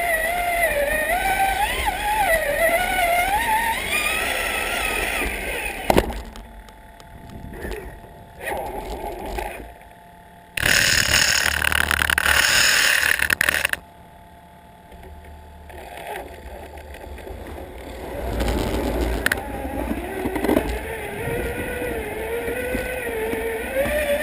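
Electric motor of a Traxxas Summit RC truck whining, its pitch rising and falling with the throttle as it plows snow, easing off in the middle and picking up again near the end. A sharp knock comes about six seconds in, and a loud harsh hissing, scraping noise runs for about three seconds from about eleven seconds in.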